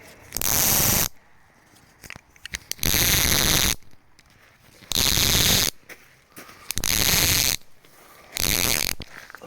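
Tarp guy-line ratchet pulley rattling in five quick pulls about two seconds apart as the cord is drawn through to tension the line.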